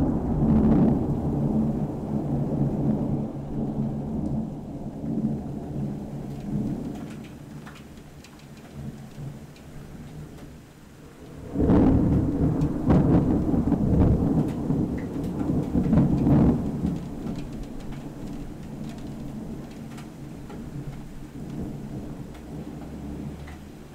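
Thunder rumbling and fading away, then a new loud clap about halfway through that rolls on for several seconds before slowly dying down. Rain falls throughout.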